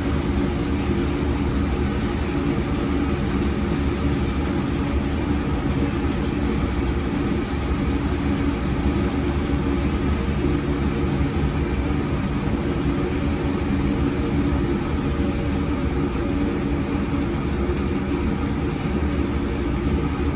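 Steady, unchanging hum of kitchen machinery running around a commercial donut fryer, a low drone with a constant pitched hum in it.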